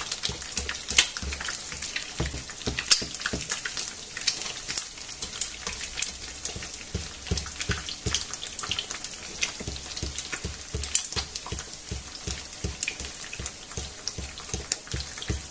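An egg frying in hot olive oil in a non-stick frying pan: the oil sizzles steadily and crackles with many sharp pops.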